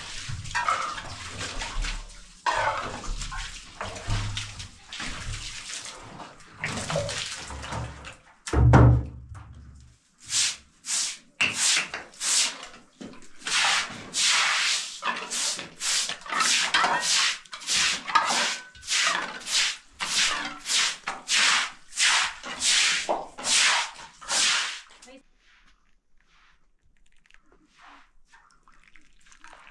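Water poured from a plastic bucket splashing and spreading across a cement floor, with one heavy thump about nine seconds in. Then a straw broom sweeps the wet floor in quick regular strokes, about two a second, stopping a few seconds before the end.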